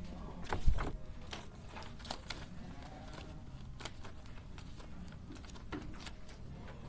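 Sheets of paper rustling and crackling as a stack of pages is lifted and leafed through. There is one louder thump just under a second in.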